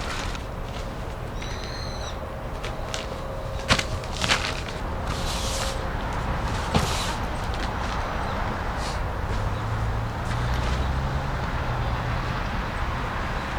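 Wind buffeting the microphone in a snowstorm, a steady low rumble, with a few sharp clicks and brief swishes of handling noise over it.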